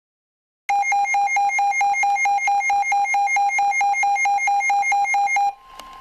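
Weather alert radio's built-in alarm beeping rapidly and evenly, about five beeps a second, signalling a warning being received. The beeping stops near the end, and a brief steady tone follows.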